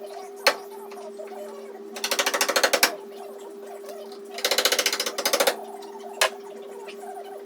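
Metalworking tool on car bodywork firing in two bursts of about a second each, a fast even rattle of pulses, with single sharp clicks before and after.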